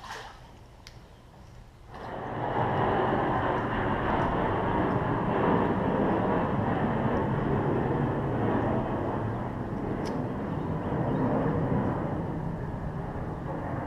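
Steady engine noise that sets in suddenly about two seconds in and runs on, easing slightly near the end.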